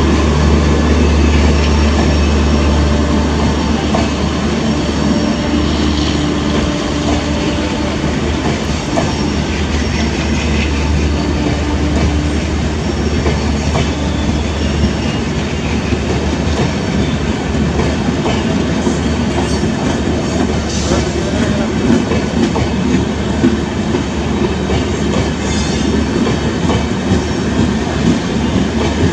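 LHB passenger coaches of an Indian Railways express rolling past, wheels running over the rails in a continuous loud rolling noise; a low hum underneath drops away about halfway through.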